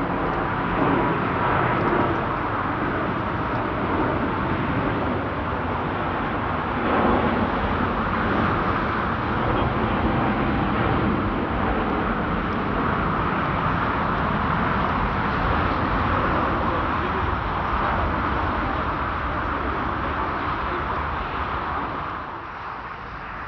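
Jet airliner's engines at takeoff power on departure: a steady loud roar that drops off near the end.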